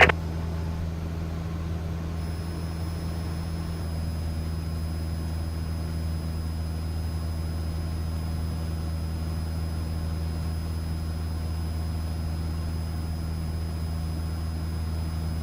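Cessna 172's engine and propeller droning steadily in cruise as a constant low hum. Faint steady high-pitched whines come in about two seconds in.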